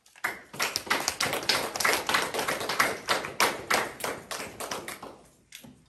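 Small audience applauding, starting right away, then thinning out and fading away near the end.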